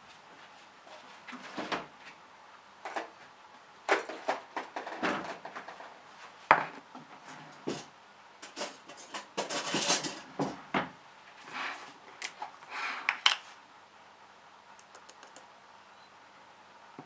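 Kitchen handling sounds: a string of clinks, knocks and taps as containers and a plastic lid are handled and set down on a countertop, with a longer scraping rustle about ten seconds in. The clatter stops about thirteen seconds in.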